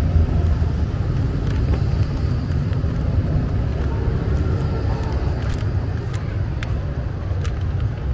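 Steady low rumble of a moving vehicle, with a few faint clicks and squeaks over it.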